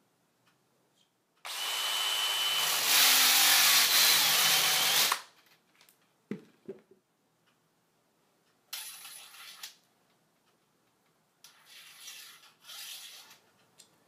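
Hand drill spinning a Flaring SPIN tool against the end of a copper tube: a loud whirring friction noise of about three and a half seconds, with a thin steady whine in its first second, as the heat of the friction forms the flare. A few faint knocks and rustles follow.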